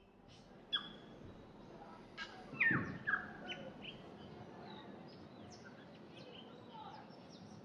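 Small birds chirping in a tree: a scatter of short chirps that drop in pitch, busiest a couple of seconds in, over a faint outdoor hiss.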